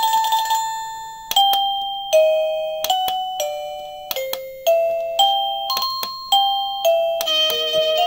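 Wireless plug-in doorbell ringer playing electronic chime tunes: single bell-like notes that each ring and fade, stepping up and down in a melody. One tune gives way to a new one about a second in, and a fuller tune begins near the end, as its chime-select button steps through the chimes.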